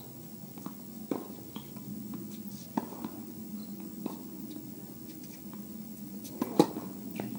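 Tennis ball being hit with rackets and bouncing during a practice rally: sharp pops every second or two, the loudest near the end, over steady low background noise.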